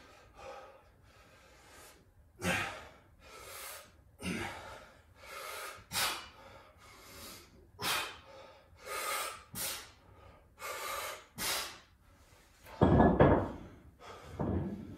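A person breathing hard from exercise exertion, with a sharp puff of breath about once a second. Near the end comes one louder, deeper burst of noise.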